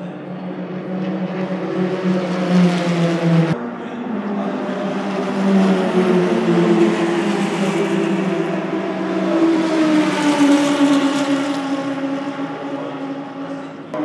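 Open-wheel single-seater race car engines as the cars drive past on the track. The sound changes abruptly about three and a half seconds in. Then another car's engine grows louder, and its note falls gradually as it goes by.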